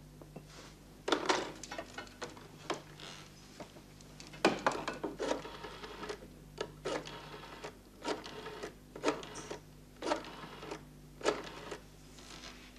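Rotary telephone being dialled: bursts of sharp mechanical clicks as the dial is turned and runs back, about eleven in all.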